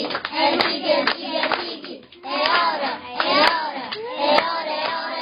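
A small group clapping along while singing a birthday song, with sharp hand claps among the voices.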